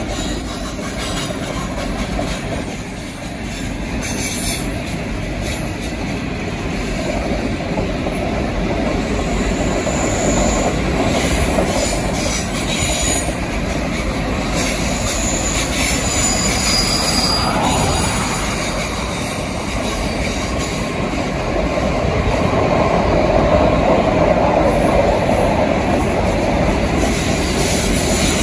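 The Ghan's stainless-steel passenger carriages rolling past close by: steady noise of wheels running on rail with clickety-clack over the rail joints, and a few short, high wheel squeals about halfway through.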